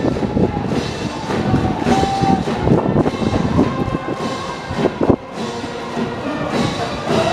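Cheering brass band and drums playing a rhythmic fight song from the stands, with held horn notes over a steady drum beat. A single sharp knock cuts through about five seconds in.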